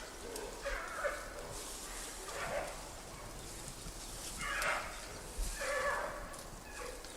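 Wild giant pandas calling during the mating season: about six separate growling, bleating calls spaced a second or two apart.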